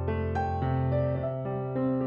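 Background music: gentle piano or electric piano playing a slow melody over held bass notes.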